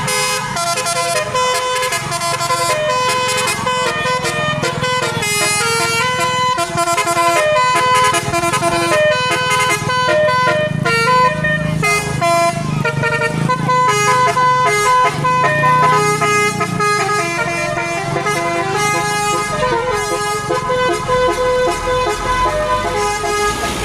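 Tour bus's telolet musical horn, a basuri-type multi-note horn, playing a long tune of quick stepped notes over a low rumble.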